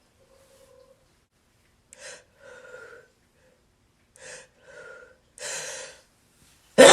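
A person's hitching 'ah' gasps building toward a sneeze, about five short catches of breath, and then the sneeze bursting out suddenly and loudly at the very end.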